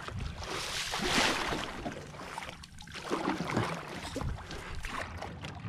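Water splashing and sloshing at the surface around a kayak and paddleboard, with a louder rush of splash about a second in.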